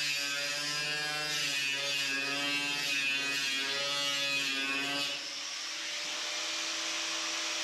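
Small electric power tool running, a buzzing motor whine that wavers slightly in pitch under load, easing to a fainter, steadier hum about five seconds in.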